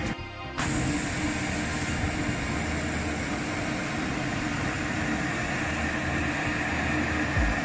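TGV power car's ventilation blowers running: a steady whir with a low hum underneath, after a brief drop in sound in the first half-second.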